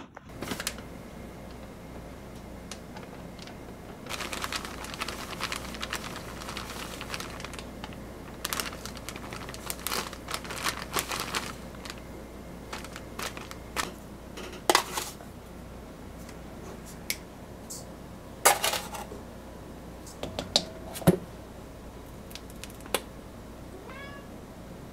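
Kitchen handling sounds while dry ingredients are measured into a stainless steel mixing bowl: rustling of packaging and powder, and a scattering of sharp clicks and knocks at irregular intervals, over a steady low hum.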